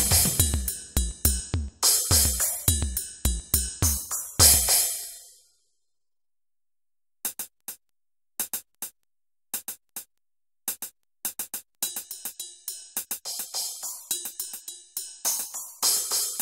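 Electronic music made in LMMS: a drum-machine beat with bass and synth stops about five seconds in. After a short silence, sparse clicking percussion returns and grows busier toward the end.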